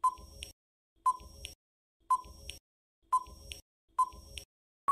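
Quiz countdown timer sound effect: five short electronic beeps, one a second, each followed by a fainter tick.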